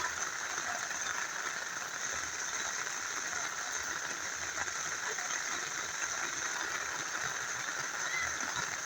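Steady rain falling together with a small river flowing, an even hiss of water.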